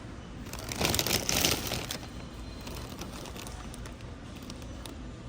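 Plastic snack packaging crinkling as it is handled, a burst of about a second and a half near the start, over a steady low store background.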